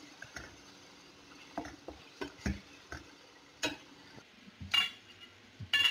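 Wooden spatula stirring and scraping thick masala gravy in a kadai, with scattered soft knocks against the pan and a few louder knocks in the second half.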